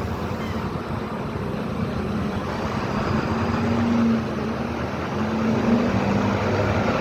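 Steady motor-vehicle noise: a low engine and road rumble, with a faint hum swelling about three seconds in and fading near the end.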